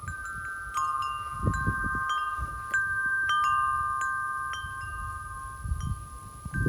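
Large tubular wind chime blown by the wind, its tubes struck again and again and ringing in long, overlapping tones. Gusts rumble on the microphone now and then.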